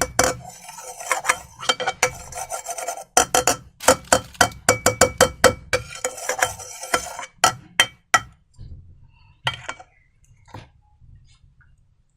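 Scraping and stirring in a container during slime making: a dense run of rapid clinks and rasps with a faint ring, thinning to occasional quieter clicks after about eight seconds.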